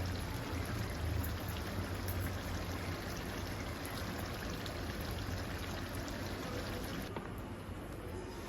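Water running steadily, as from a kitchen tap, with the hiss thinning slightly near the end.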